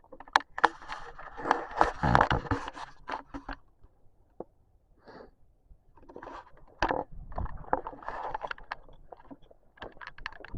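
Irregular crunching and scraping footsteps on dry ground, with a pause of about two seconds near the middle.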